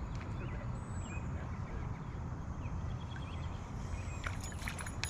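Outdoor ambience: a steady low rumble with faint bird chirps scattered through it, and a few sharp clicks in the last second.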